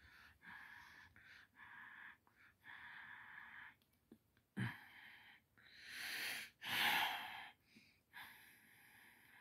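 A person breathing close to the microphone: a run of irregular breaths, the loudest about six to seven seconds in.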